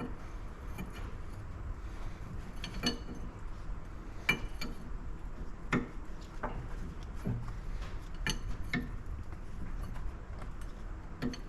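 A 7/8-inch wrench working on a hydraulic solenoid on a valve block, giving scattered sharp metal clinks and ticks at uneven intervals.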